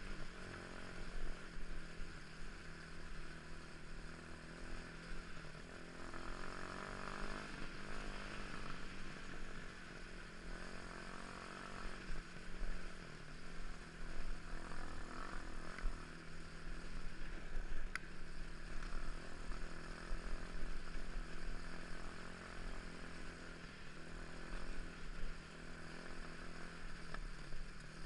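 Motorcycle engine running under way, the revs shifting now and then, heard through poor-quality audio.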